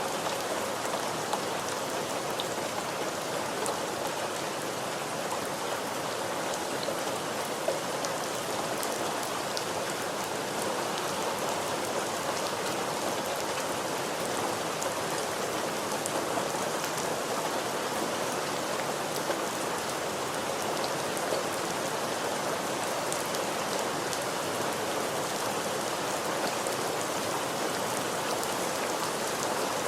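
Steady, even rain falling on a surface, with a dense hiss and scattered individual drops ticking through it.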